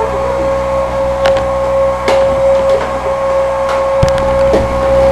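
Vacuum cleaner running with a steady motor whine, with a few knocks and bumps against it.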